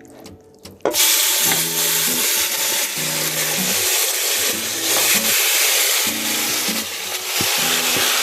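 Marinated chicken dropped into hot oil and ghee in a pot, sizzling loudly; the sizzle starts suddenly about a second in and then holds steady.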